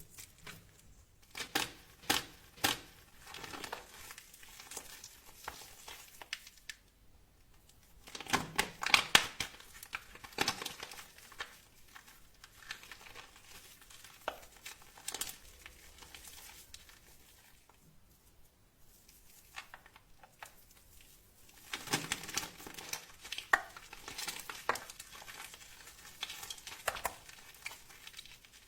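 Crisp crunching and crackling of dry soap being broken up, in three bursts of quick clicks with quieter scattered crackles between.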